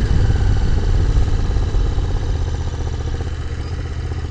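Royal Enfield 650 parallel-twin motorcycle running steadily on the road, with heavy wind rumble on the microphone; the sound eases down a little toward the end.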